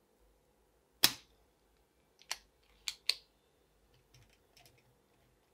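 Spring-loaded desoldering pump (solder sucker) firing with one sharp snap about a second in as it pulls molten solder off the joint, followed by three lighter sharp clicks and a few faint clicks near the end.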